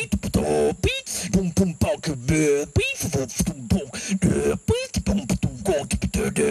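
Cartoon marsupilamis' rhythmic vocal chatter, a fast string of short clipped calls and clicks with quick pitch swoops, much like beatboxing.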